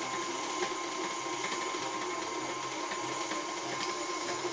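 KitchenAid Artisan stand mixer running steadily at speed, its beater creaming butter and sugar for a cake batter.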